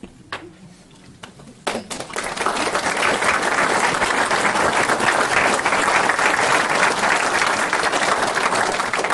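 Audience applauding: a few scattered claps about two seconds in, building into steady applause that dies away near the end.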